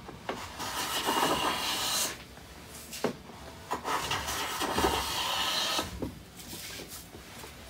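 Hand plane taking two long strokes along the edge of a wooden board, each about two seconds of steady shaving noise, followed by a few light knocks and clicks.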